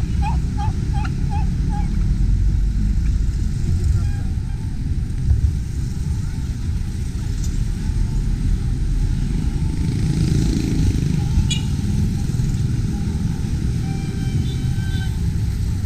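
A turkey calling in a quick series of notes in the first second or so, over a steady low rumble of street traffic that runs on through the rest.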